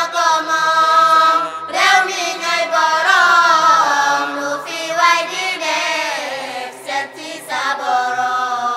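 Background music: a voice singing a chant with long held notes that glide from pitch to pitch.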